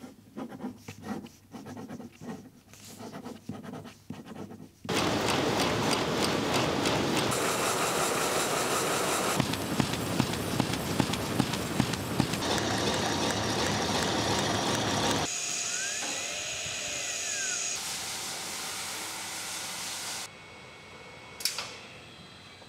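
A few seconds of pen strokes scratching on paper, then textile machinery running with a loud, dense mechanical clatter that changes every few seconds, with a run of sharp regular clicks in the middle and a single knock near the end.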